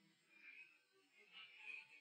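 Near silence on an AI-separated backing-vocal stem: only faint, smeared remnants of the mix, mostly high-pitched, bleed through where no backing voice is singing.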